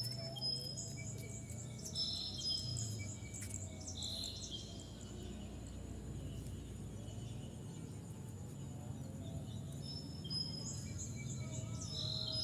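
Rice-field ambience at dusk: birds calling in short, high whistled notes again and again, over faint insects and a low steady rumble.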